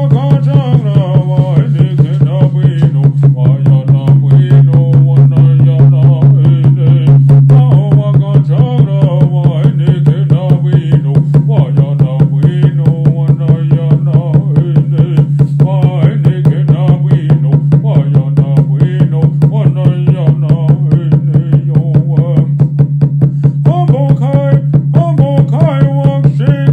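A man singing Native American Church peyote songs in vocables over a fast, even beat on a water drum, the drum's deep tone ringing on under the beat. The singing breaks off briefly near the end and comes back while the drumming keeps going.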